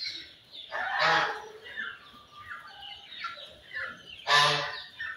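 Domestic geese honking loudly twice, about a second in and again near the end, among a flock of chickens clucking with short falling calls.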